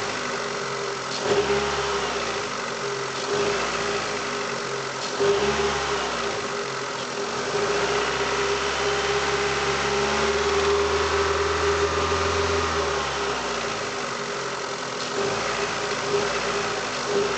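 Mitsubishi Lancer IX's 4G18 four-cylinder engine, cold, blipped several times and held at higher revs for a few seconds about halfway through, dropping back to idle in between. A knock after each throttle release is growing duller as the engine warms, which the owner takes for a partly clogged hydraulic lash adjuster.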